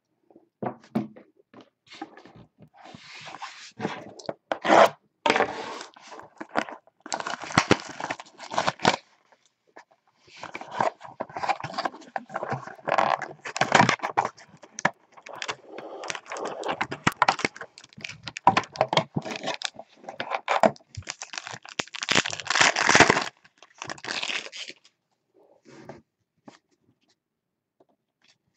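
Cardboard hobby box of trading cards being opened and its foil card pack torn open, crinkling and rustling in spells with short pauses, then cards being slid and handled as it grows quieter near the end.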